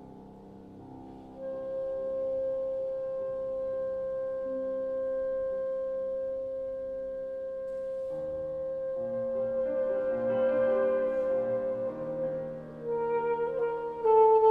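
Alto saxophone and piano playing a classical sonata: soft piano chords open, then the saxophone holds one long steady note over quiet piano for several seconds. Near the end the music grows louder and busier, with the saxophone moving through quicker notes against fuller piano.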